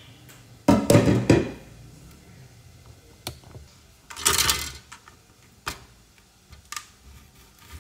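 Kitchen handling sounds as a lemon is prepared for cutting with a knife on a plastic cutting board on a stone counter. A few loud clattering knocks come about a second in. A short scraping rush follows around four seconds, then single light knife clicks against the board as the lemon is cut.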